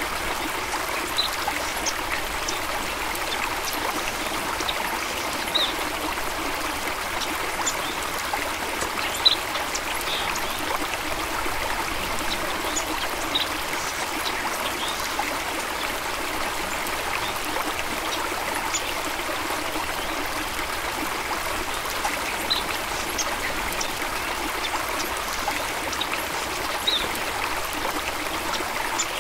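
Water stream flowing steadily: a constant rush of running water with scattered brief high plinks and trickles.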